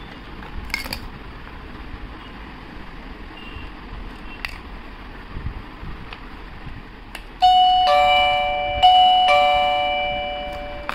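Battery-powered Goldmedal electronic doorbell chime playing its ding-dong tune, a higher note falling to a lower one, sounded twice and fading away. Before it come a few small clicks of handling.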